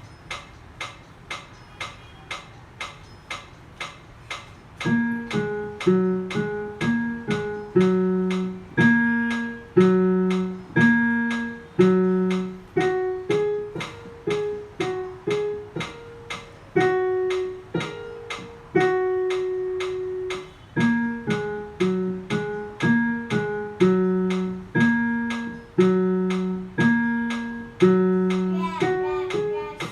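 A metronome ticking steadily about twice a second, joined about five seconds in by a simple tune of single notes that ring and fade, played in time with the ticks.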